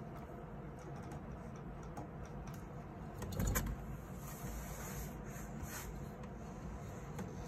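Long-haired golden Syrian hamster running in a clear plastic exercise wheel, the wheel rumbling steadily with scrabbling in paper bedding, and a louder knock about three and a half seconds in.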